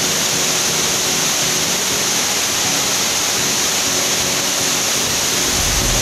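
Waterfall pouring over boulders: a steady, loud rush of falling water, even in level throughout, with a low rumble coming in near the end.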